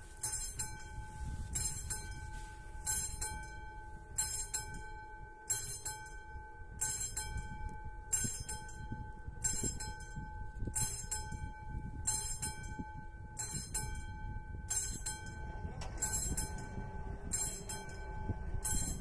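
Classic mechanical bell of an AŽD 71 level-crossing signal, striking steadily about once every 1.2 seconds with each stroke ringing on. It is the crossing's warning that a train is approaching.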